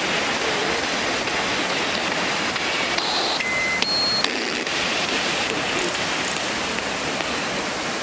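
Steady rushing of a waterfall. About three to four seconds in come a few short electronic beeps at different pitches.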